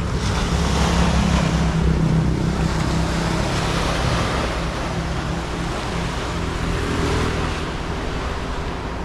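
Small waves washing up onto a sandy beach, with wind on the microphone and a low steady hum underneath.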